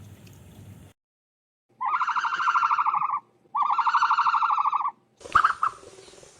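An ostrich's calls: two long, rapidly pulsed, high-pitched buzzing calls of about a second and a half each, then short sharp calls near the end.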